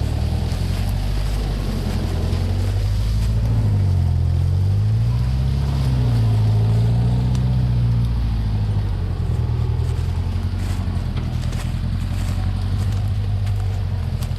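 Off-road 4x4 engine running under load, its pitch dropping about four seconds in and then climbing and falling again over the next few seconds as the throttle changes, with a few faint knocks later on.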